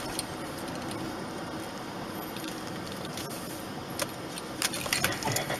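Steady road and engine noise inside a moving car, with a few sharp clicks or rattles in the last second and a half.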